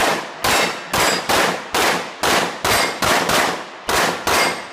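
Pistol fired in quick succession at steel plate targets: about a dozen shots, two to three a second, each followed by the high ring of a steel plate being hit.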